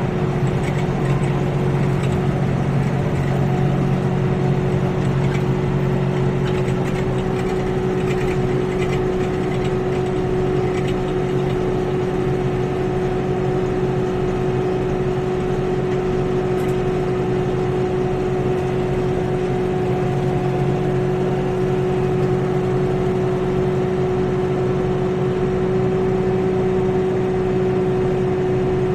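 Kioti NX6010 tractor's diesel engine running steadily at working speed, driving a BH26 rotary cutter (bush hog) mowing clover. It is a constant, even hum that holds the same pitch and level throughout.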